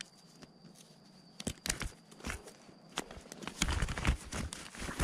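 Footsteps and handling noises: scattered knocks and scuffs, with a denser run of heavier thuds and scrapes about three and a half seconds in.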